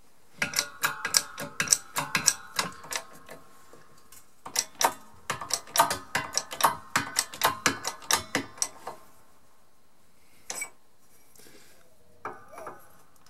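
Quick, irregular metallic clicks and clinks from tools and parts being worked at a shop press. They come in two runs of a few seconds each, with a few single clicks near the end.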